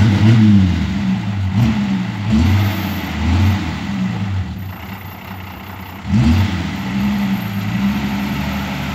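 Old four-wheel-drive's engine being revved in repeated blips, its pitch rising and falling several times, with one more strong rev about six seconds in before it holds a steadier note. It is on a cold first start after standing unused for twelve years.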